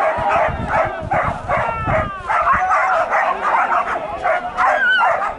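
Dogs yelping and whining in many overlapping high cries, with men's voices shouting among them.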